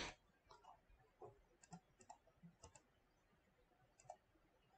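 Faint computer mouse clicks: a handful of short, sharp clicks scattered through the quiet, several coming in quick pairs.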